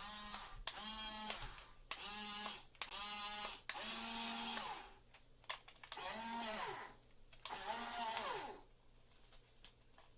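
Small electric gear motors of a 1/14-scale Top Race RC excavator whirring in about seven short bursts. Each burst rises in pitch as the motor spins up and falls as it stops. The functions are not proportional, only full on or off.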